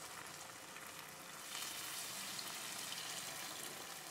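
Freshly ladled lentil fritter batter frying in hot groundnut oil in an iron kadai: a steady sizzle of bubbling oil, getting a little louder about one and a half seconds in.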